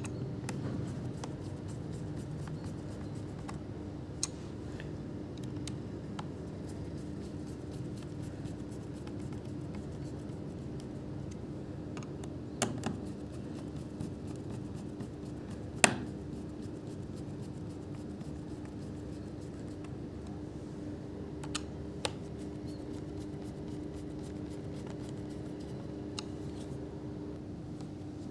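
A laptop being handled: a scattering of sharp clicks and taps, one louder near the middle, over a steady low hum.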